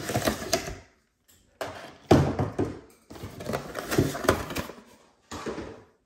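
Cardboard packaging being handled: the inserts of a hair dryer's cardboard box scraping and sliding as they are pulled out, with small knocks, in several short bursts.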